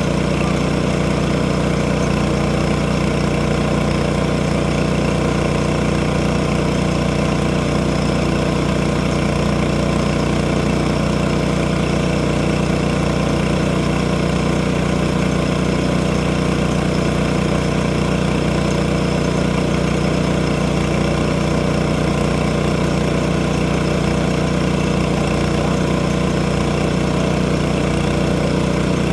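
Engine running steadily at one even speed, with a deep hum and no change in pitch or load.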